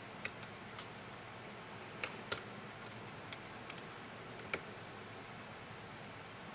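Light, irregular clicks of a metal latch tool and machine-knitting needles against a plastic needle bed as stitches are moved by hand, with the sharpest pair of clicks about two seconds in.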